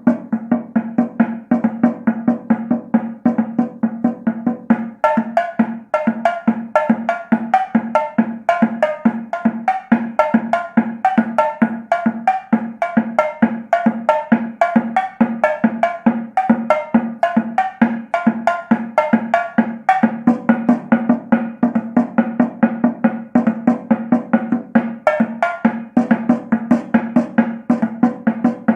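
Percussion music with a steady, fast drum beat over a sustained low note; a higher melodic part grows stronger about five seconds in.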